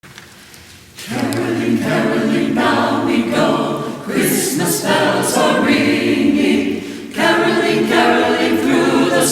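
Choir singing, coming in strongly about a second in. There is a short break between phrases just before seven seconds.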